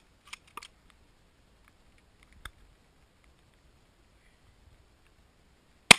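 A few faint clicks, then a single loud gunshot just before the end.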